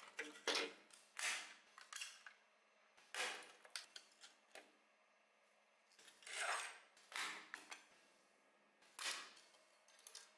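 Parts of a die-cast model car being handled and taken apart on a wooden table: a series of short clicks, knocks and scrapes at irregular intervals, with a longer scrape or rattle about six and a half seconds in.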